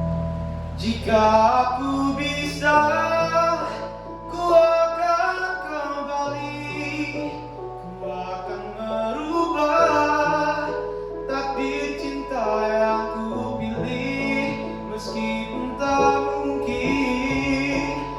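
A male singer sings a slow ballad melody over a sustained instrumental backing.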